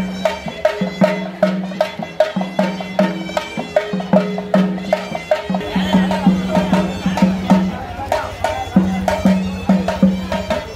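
Traditional procession music: a droning wind instrument and melody over a quick, steady drum beat. The drone breaks off briefly about halfway through and again later before coming back.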